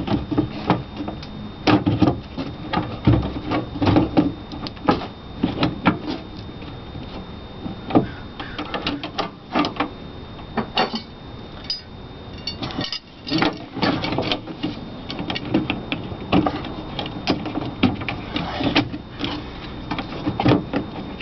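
A meter-socket generator adapter being pushed, twisted and seated into a metal electric meter socket by hand: irregular clicks, knocks and rattles of the adapter against the box.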